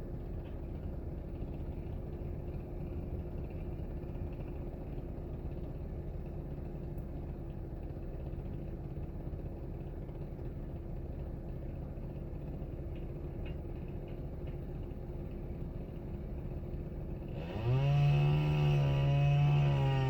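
Steady low rumble of a running motor with a faint steady hum. Near the end it changes abruptly to a louder hum that rises in pitch and then holds steady.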